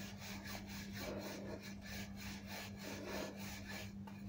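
Wooden rolling pin rolling out paratha dough on a floured countertop: a faint, repeated rubbing with each back-and-forth stroke.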